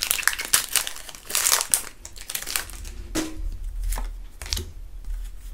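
Foil wrapper of a Pokémon Vivid Voltage booster pack crinkling as it is opened and handled, dense for about two seconds, then a few light clicks and rustles as the stack of cards is handled.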